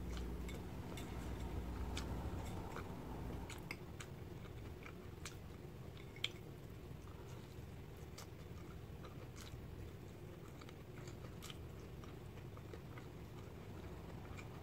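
A person chewing a bite of soft egg pancake with finely chopped vegetables (gyeran mandu), faint, with scattered small mouth clicks and crunches.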